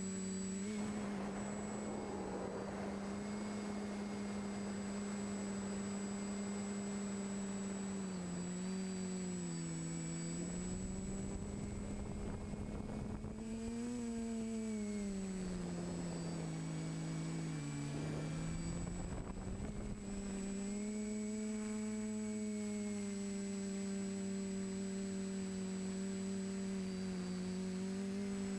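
TBS Discovery Pro quadcopter's electric motors and propellers humming steadily, heard from the GoPro mounted on it. The pitch sags about ten seconds in, rises briefly near the middle, then dips again for a few seconds as the throttle changes, with a rush of air noise during the dips, before it settles back to the steady hum.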